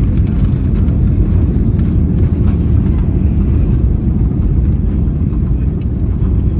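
Steady low rumble of engine and airflow noise heard inside an Airbus A320 cabin during the landing approach.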